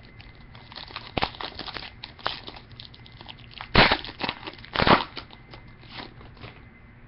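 Trading cards being handled and flipped through by hand: light clicks and rustles of card against card, with two louder scraping rustles a little past the middle, about a second apart.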